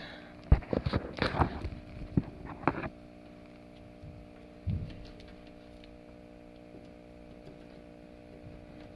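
A quick run of plastic clicks and knocks, test leads being handled and pushed into an outlet, for the first three seconds or so, then a single thump. Under them is the powered-on Power Jack inverter's steady electrical hum.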